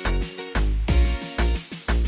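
Upbeat background music with a steady beat, bass and plucked guitar.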